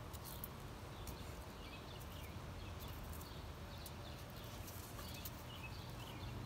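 Light clicks and taps of jalapeño peppers being handled and set down on a gas grill's metal grates and rack, over a low steady hum, with faint high chirps scattered through.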